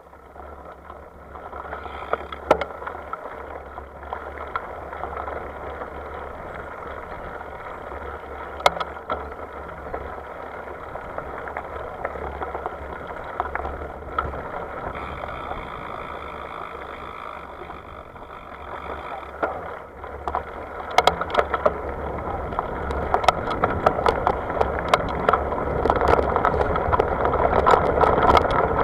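Wind and road noise on a camera riding along with a group ride, with frequent sharp rattles and clicks that get louder and busier about two-thirds of the way through.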